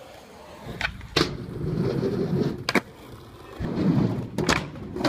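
Skateboard wheels rolling over the skatepark ground and ramp in two spells, with sharp clacks of the board: a pair about a second in, one near the middle and two more near the end.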